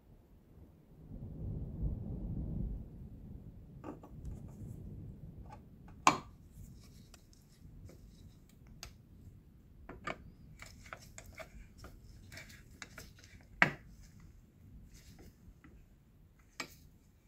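A polished metal grip panel is set against a metal toy pistol frame with a low rub. Then a screwdriver scrapes and clicks in slotted grip screws, with a few sharp metallic clinks several seconds apart.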